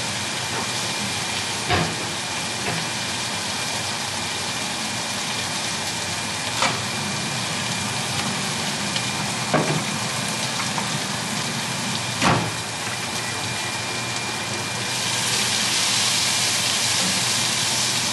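Food sizzling in a hot pan, a steady hiss that gets louder near the end, with four sharp knocks or clinks along the way.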